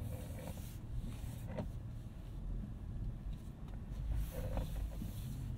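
Low rumble of the Honda Passport's 3.5 L V6 crawling slowly over a rocky, sandy trail, heard from inside the cabin, with short bursts of tyre and gravel noise and brief body creaks. A single sharp knock comes about a second and a half in.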